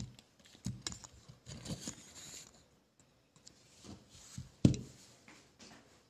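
Handling noise from the recording phone being moved: a string of clicks, knocks and rustles, with one loud thump a little over halfway through.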